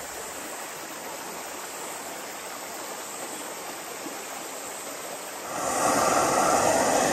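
Steady rushing of a river. About five and a half seconds in, a louder steady hiss sets in and keeps going.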